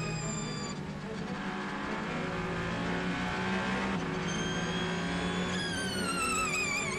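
Onboard engine sound of the Ferrari 499P hypercar's twin-turbo V6 lapping at speed. Its note holds steady and high from a little past the middle, then falls in pitch over the last second and a half as the car slows for a corner.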